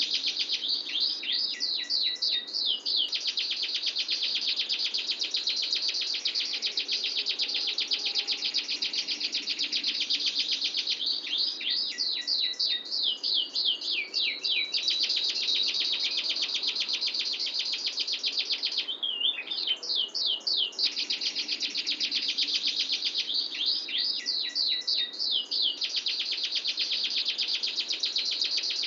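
Domestic canary singing a long, unbroken rapid rolling trill. Four times it lays phrases of quick repeated sweeping notes over the trill.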